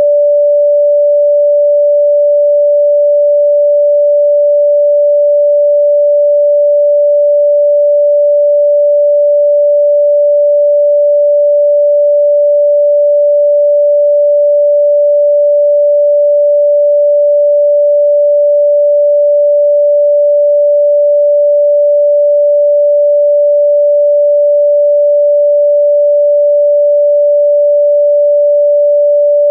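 A single steady, mid-pitched pure electronic tone, held unchanged without any rhythm or other sound: a meditation frequency tone.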